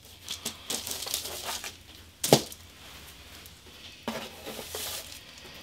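Utensil scraping and clicking against a pan as roasted cauliflower steaks are flipped over, with a single sharp knock a little past two seconds in and more scraping near the end.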